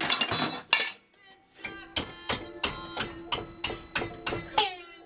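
Hammer striking metal clamped in a bench vise: a few uneven knocks at the start, then, after a short pause, steady ringing blows about three a second.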